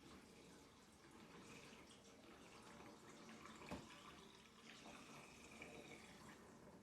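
Faint dishwashing at a sink: water trickling and dripping, with one sharp clink of a dish a little past the middle.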